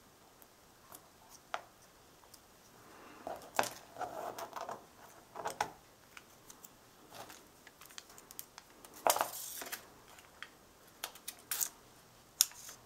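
Handling of punched cardstock pieces on a cutting mat: paper rustling and small taps and clicks, scattered and irregular. A longer rustle comes about nine seconds in, and a few sharper clicks near the end.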